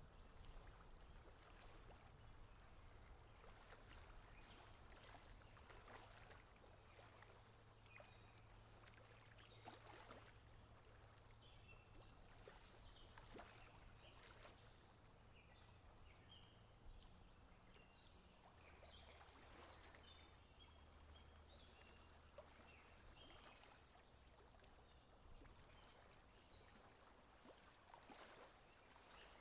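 Near silence: faint outdoor ambience with a steady low hum and scattered faint, short high chirps.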